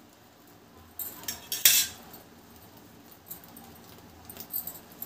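Metal clinks and a scrape from the lidded steel appe pan being moved on the gas stove, the loudest a sharp clink a little under two seconds in, followed by a few faint ticks.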